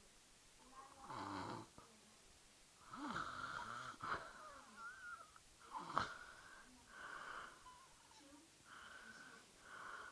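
A woman snoring in her sleep: about six breaths in ten seconds, each with a wheezy, whistling tone.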